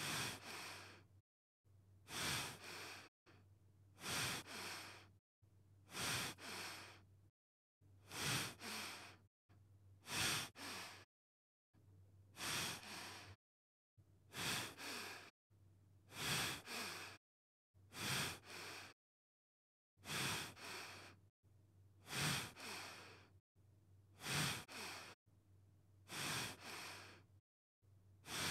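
A person breathing, about one breath every two seconds, each a short two-part rush of air with silence between breaths.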